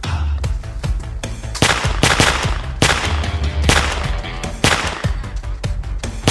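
A series of loud gunshot sound effects with echoing tails, about one a second, over background music with a steady deep bass.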